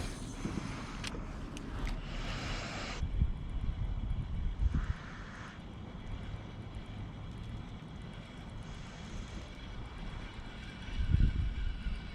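A faint, steady drone of a distant engine, over kayak noise: a broad wash for the first three seconds and a few dull knocks.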